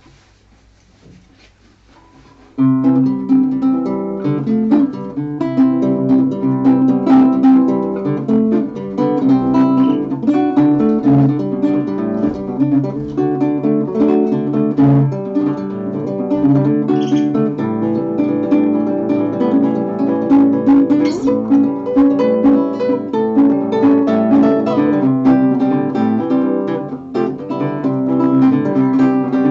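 Hofner 3/4-size classical guitar with nylon strings, plucked solo, starting suddenly about two and a half seconds in after a near-quiet pause.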